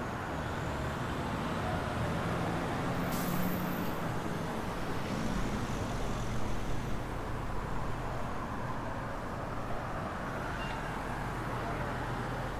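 City street traffic: steady motor-vehicle noise with engine hum from passing cars and heavier vehicles, and a short high hiss about three seconds in.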